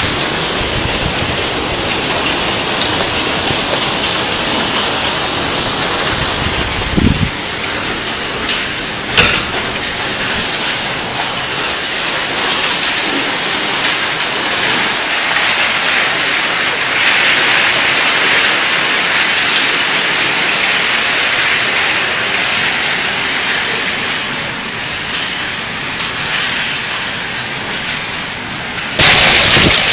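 Hailstorm: hail and heavy rain pelting down in a dense, steady hiss, with a couple of sharper knocks about seven and nine seconds in. It gets suddenly louder just before the end.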